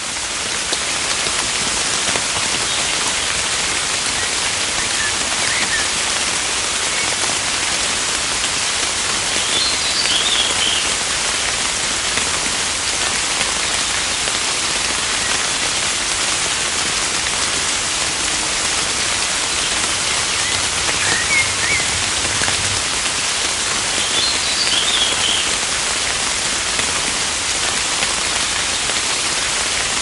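Steady, heavy rainfall hissing evenly, with a small bird chirping faintly a few times in short clusters, twice over.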